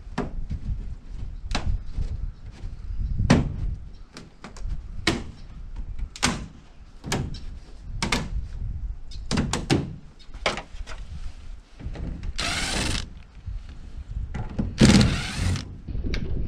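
Irregular knocks and clicks from hands and tools working on a camper's metal window frame and siding, often one or two a second. Near the end come two longer hissing scrapes, each about a second long.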